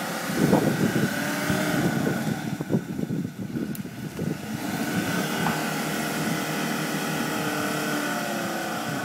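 Land Rover Discovery engine revving up and down under load as the vehicle works forward through deep mud ruts, with irregular knocks in the first few seconds.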